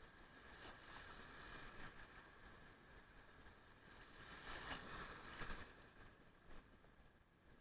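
Near silence: a faint wash of surf that swells gently about a second in and again around the middle, with a light tick near the end.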